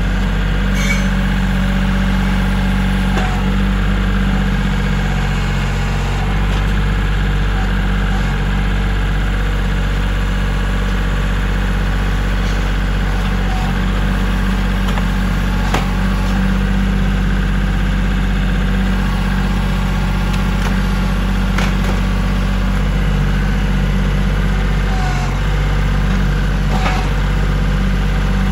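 Kioti compact tractor's diesel engine running steadily while its front loader and pallet forks work at a pallet of cement bags, with a few light knocks.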